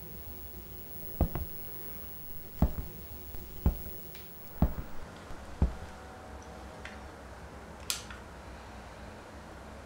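A slow series of five dull, heavy thumps about a second apart, some followed closely by a lighter second knock, then a single sharp click near the end.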